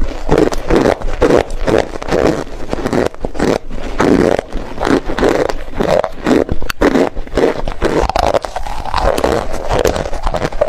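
Close-miked chewing of a mouthful of cornstarch: a steady run of chews, about two to three a second.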